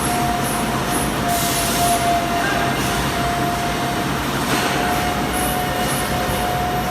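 Overhead crane running: steady rumbling machinery noise with a steady high whine held throughout, and a few brief hisses.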